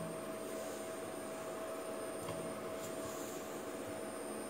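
Steady hiss with a faint constant whine, the background noise of the workbench, with two faint ticks a little past the middle.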